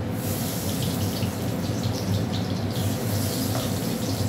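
Sliced spiny gourd (kakrol) sizzling in hot oil in a steel karahi as the slices are dropped in, a steady frying sizzle with small crackles that starts suddenly as the first slices hit the oil. A steady low hum runs underneath.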